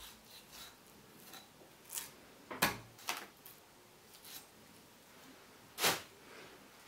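Kitchen knife trimming sinew off a piece of raw beef, with a few short clicks and scrapes as the blade meets the cutting board. Two of the clicks are much louder than the rest.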